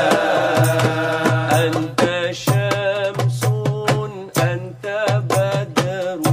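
Men singing selawat, a devotional chant in praise of the Prophet, over a steady beat from a hand drum and tambourine. From about two seconds in, one voice with a wavering pitch leads.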